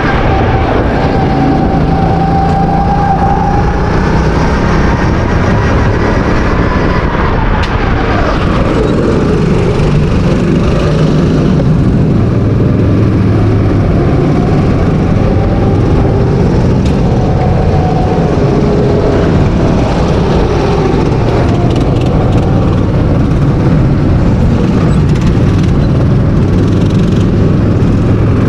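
Go-kart engine heard from on board the moving kart, its pitch rising and falling as the driver accelerates and lifts through the corners, with a clear drop in revs about seven seconds in.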